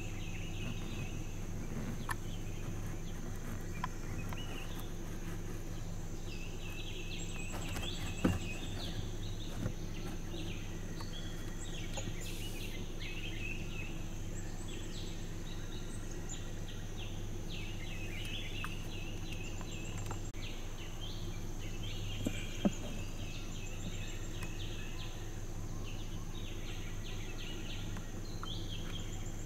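Forest ambience: birds calling in rapid chattering runs and a steady high insect drone over a constant low hum, with a few faint knocks.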